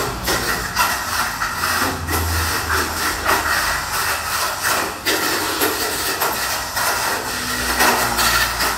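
Tamiya Mini 4WD car with an MS Pro chassis racing around a plastic track: its small electric motor and gears whir at high speed, with frequent clicks and clatter as its rollers and bumpers hit the track walls.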